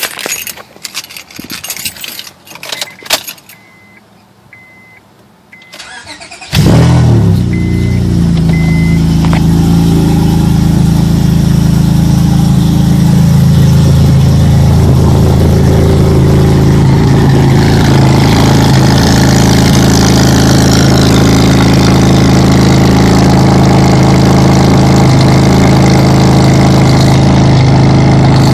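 2006 Honda Accord V6 cold start: after some clicks and a few short high beeps, the engine catches suddenly about six and a half seconds in and settles into a loud, steady idle through its 3-inch single-exit exhaust.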